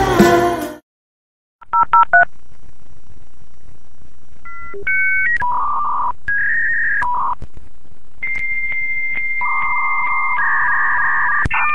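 Electronic beep tones like phone keypad presses: a few short two-note beeps, then longer held tones that step between several pitches like a little tune, with a few clicks in between.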